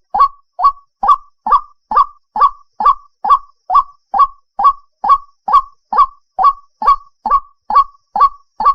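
White-breasted waterhen (ruak-ruak) calling a rapid, evenly repeated series of short, sharp notes, a little over two a second.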